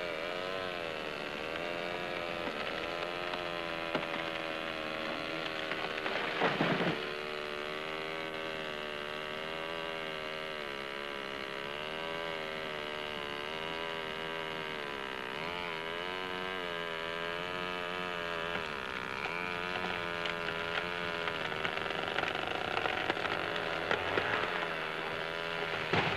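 Small chainsaw (power saw) engine running and cutting through a fallen log, its pitch wavering up and down as it works, with a short rougher burst about six seconds in.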